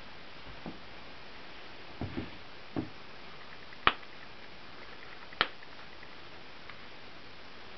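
Steady faint hiss with a handful of scattered short clicks and light knocks, the two sharpest about four and five and a half seconds in.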